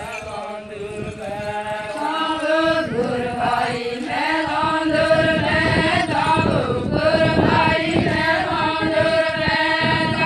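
A group of women singing an Adivasi folk song together, a chant-like melody with long held notes, growing louder about two seconds in.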